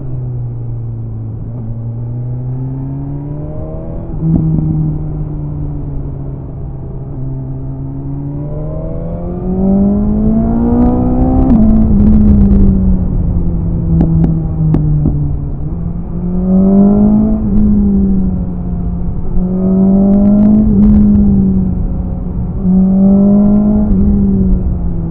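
BMW S1000RR inline-four engine heard onboard, repeatedly revving up and easing off through a run of bends. A few sharp cracks stand out about halfway through and again later.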